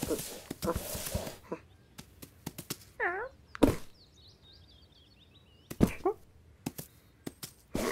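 Cartoon sound effects: a cat's short meow falling in pitch about three seconds in and another brief one near six seconds. Between them come sharp taps and a few knocks as the cat pushes and paws at a tied parcel, with faint high chirping in the middle.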